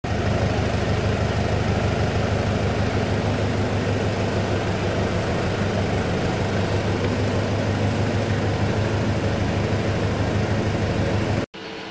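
Steady, loud mechanical rumble with a hiss over it, cutting off suddenly near the end.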